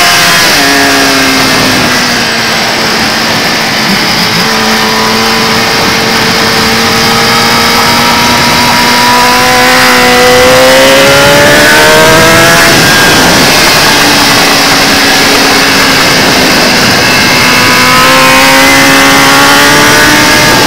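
Kawasaki ZX-10R inline-four engine at racing speed, with wind rushing over the microphone. The revs fall at the start, climb slowly through a long corner, rise and then drop away about twelve seconds in, then climb slowly again.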